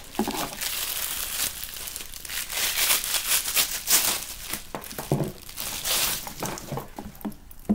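Plastic packaging crinkling and rustling continuously as a new purse strap is unwrapped and pulled out by hand.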